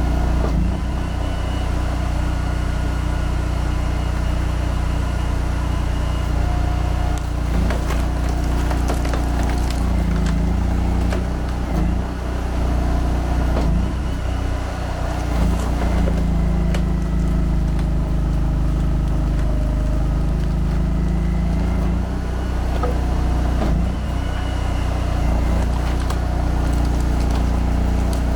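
Log splitter's 25 hp Honda GX800 V-twin engine running steadily, its pitch dipping under hydraulic load briefly about ten seconds in and for several seconds from about sixteen seconds. A few sharp cracks are heard, typical of logs splitting on the box wedge.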